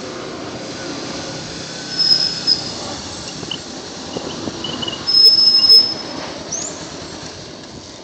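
Kawasaki Ninja 250R's 250 cc inline-twin engine with stock exhaust running at low revs as the bike slows to a stop, with two short high-pitched brake squeals: one about two seconds in, and a louder one around five seconds.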